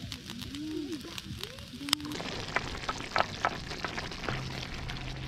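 Chicken sizzling on a wire grill over charcoal, with crackles from the coals. About two seconds in, it changes to a pan of meat stew sizzling on a portable gas stove, stirred with a wooden spoon, with scattered clicks.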